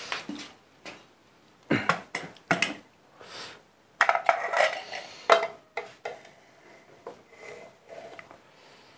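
Metal serving spoon scraping and clinking against a steel pot and plate as rice is dished up, in irregular clusters of clatters with short pauses between.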